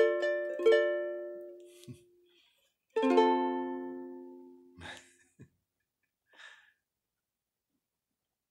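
Ukulele ending a song: strummed chords ring and fade, then after a short gap one final chord is struck about three seconds in and dies away. A few faint clicks follow.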